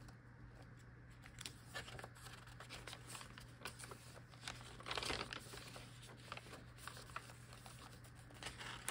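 Paper pages of a handmade junk journal being turned and handled: faint rustling and crinkling, with a louder rustle about five seconds in and another near the end.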